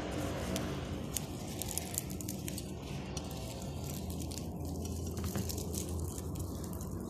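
Flaky baked puff pastry crackling and squishing as it is torn apart by hand, with scattered small crackles over a low steady hum.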